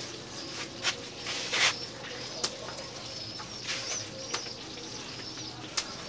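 Birds chirping in the background, with a few sharp clicks and one short scrape from a long knife scoring a slab of raw beef on a wooden chopping board.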